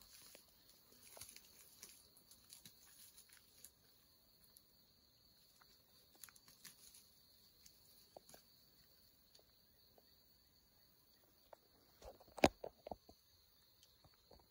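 Faint steady chirring of insects, with scattered soft rustles and crunches of careful footsteps in dry grass and leaf litter. A louder crackle of several quick snaps about twelve seconds in.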